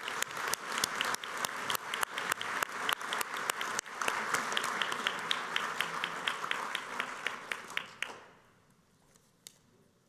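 Audience applauding, many people clapping at once; the applause dies away about eight seconds in.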